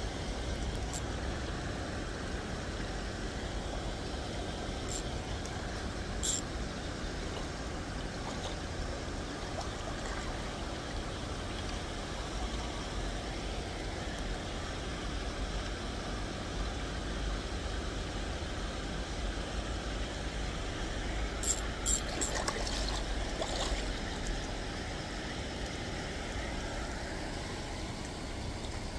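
Steady rush of river water, with a low rumble underneath. A few short, sharp sounds break through, one about six seconds in and a cluster about three-quarters of the way through.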